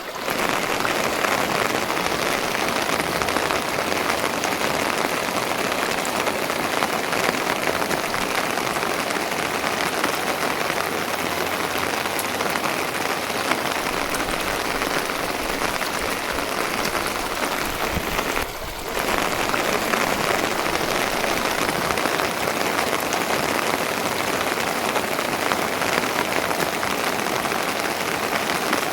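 Steady heavy rain falling and pattering on a surface. It drops out briefly about two-thirds of the way through.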